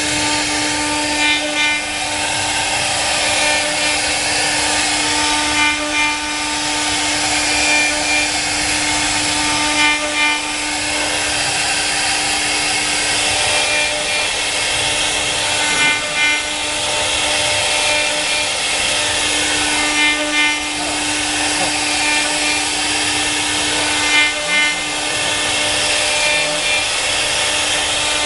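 CNC wood router's electric spindle running with a steady whine while its bit carves a relief into a wooden board. A rough cutting rasp rises and falls every couple of seconds as the cutter moves back and forth across the board.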